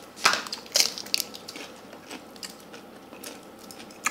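Eating sounds from a meal of rice and fried frog: several sharp crunches and clicks in the first second and a half, then quieter, with one more sharp click at the very end.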